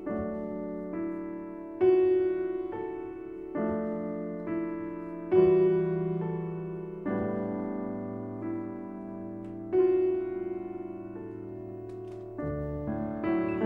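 Background piano music, slow, with a note or chord struck about every two seconds and left to ring out.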